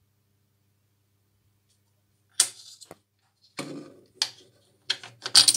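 About two seconds in, a series of short, sharp metallic clicks and knocks begins: a 1 Kčs coin being handled on the metal top of a TUS Praha coin payphone and pushed into its coin slot. The loudest clicks come near the end.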